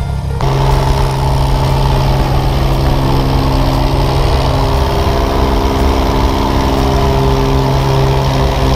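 Small single-engine propeller plane running at high power on its takeoff roll, a loud steady drone heard through the open jump door with rushing air.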